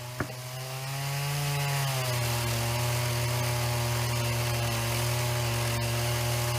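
Chainsaw powering an Alaskan chainsaw mill, running steadily at high speed under load as it rips through a silver maple log. Its pitch dips slightly about two seconds in and then holds steady. There is a single click just after the start.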